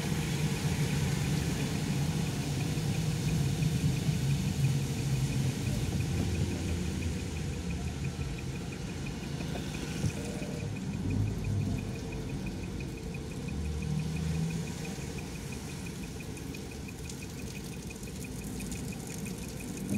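Car engine idling and creeping forward in stop-and-go traffic, heard from inside the cabin as a steady low rumble that eases a little partway through. A faint, fast, even ticking runs along with it.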